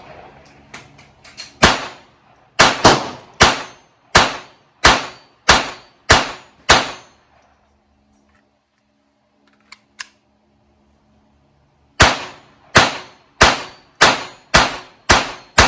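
Glock 44 .22 LR pistol firing CBC Target ammunition: a string of about nine sharp shots, then a pause of about five seconds with two small clicks, then another quicker string of shots near the end.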